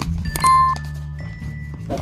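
Background music with steady low sustained notes; about half a second in, a short, loud high beep rings out briefly, with a few faint clicks around it.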